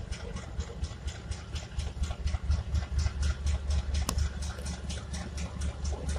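Indian Railways diesel locomotive engine running, a deep throb with a fast, even rattle of about six beats a second.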